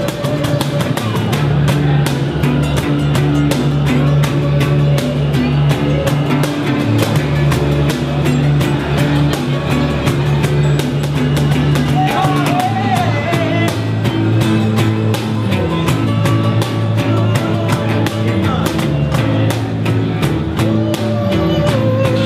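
Live acoustic band playing a song: acoustic guitars strummed over a steady beat on a cajon, with a bass line moving under them.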